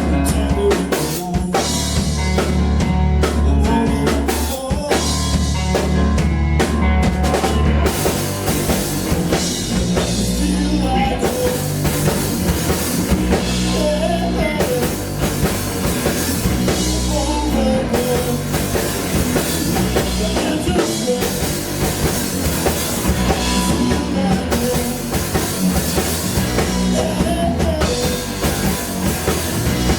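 Live band playing rock music, a drum kit driving a steady beat over heavy low bass, with a melodic line above.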